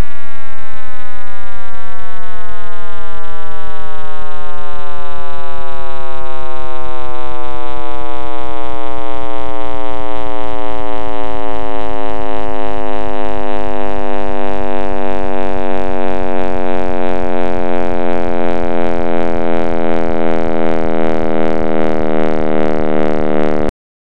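Audio rendering of the Big Bang: a loud drone of many stacked tones that glide slowly and steadily downward in pitch over a low rumble, fading slightly and then cutting off suddenly near the end.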